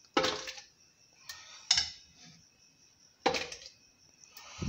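Metal ladle clinking and knocking against the pressure-cooker pot and blender jar as cooked lentils are scooped across, about five separate knocks with short ringing.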